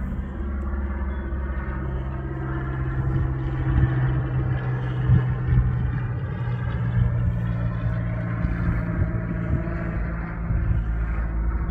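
Cessna 172N light aircraft flying overhead: a steady drone from its four-cylinder Lycoming engine and propeller that dips slightly in pitch around the middle as it passes.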